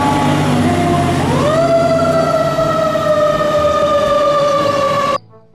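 Fire engine siren wailing: the tone sinks slowly, sweeps up about a second in, then slides slowly down again, over a low engine rumble. It cuts off abruptly near the end.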